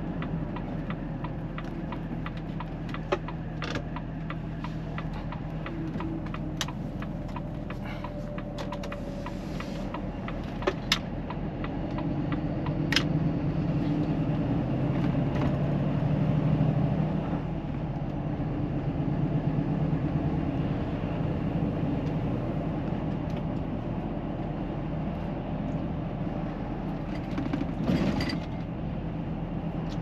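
Cab interior of a Volvo FH540 tractor unit on the move: the inline-six diesel runs under steady road rumble, swelling for a few seconds midway. A few sharp clicks and rattles come from the cab now and then.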